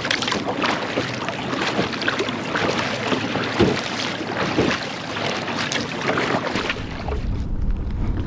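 Choppy water splashing and slapping around a kayak, with many short splashes. Near the end the splashing fades and a low wind rumble on the microphone takes over.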